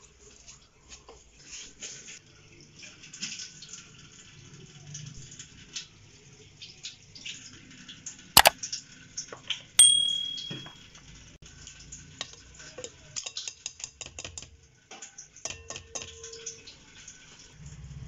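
Kitchen dishes and utensils being handled: scattered light clicks and scrapes, a sharp knock about eight seconds in, then a bright ringing clink of a bowl just after.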